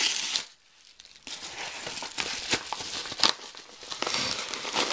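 Plastic packaging being torn open and crinkled by hand, irregular rustling with sharp crackles, paused briefly about half a second in.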